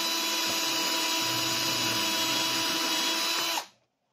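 Milwaukee cordless drill running at full speed with a steady whine, its 5 mm shelf pin bit drilling a hole into a wooden cabinet side; the motor stops abruptly near the end.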